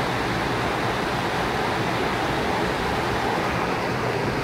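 Steady rush of a mountain stream's waterfall pouring over granite slabs into a pool, an even, unbroken roar of water.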